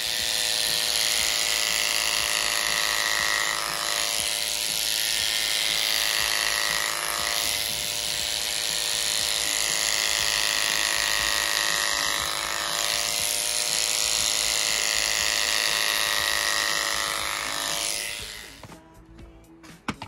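Electric horse clippers running steadily as the blades shave through a horse's thick coat. The motor cuts off near the end.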